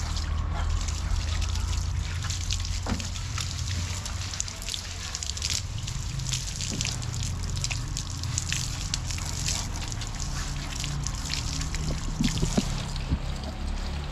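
Water splashing and dripping in many small irregular drops, over a steady low hum.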